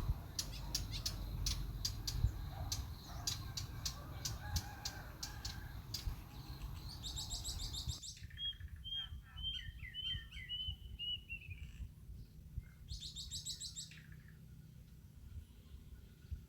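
Scattered clicks and low rustling through the first half, then about halfway through a run of about seven short, high chirps, each dipping slightly in pitch, over about three seconds.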